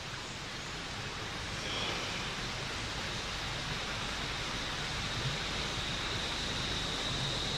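Steady outdoor ambient noise, a rushing hiss like running water or wind through foliage. A faint, high, steady whine comes in about two seconds in and holds.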